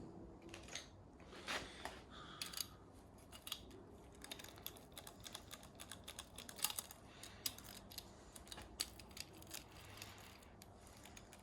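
Light, irregular clicks and taps of hand work with tools and materials during a fibreglass layup, a few louder ticks among them.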